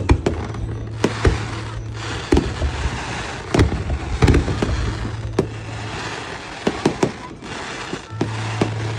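Fireworks going off in many sharp, irregular bangs, a few in quick succession, with a haze of noise between the bursts.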